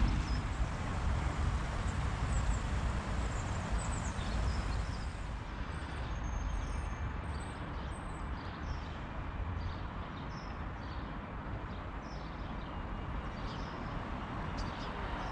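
Steady outdoor noise with a deep rumble, loudest in the first few seconds and easing a little after, and a few faint high chirps later on.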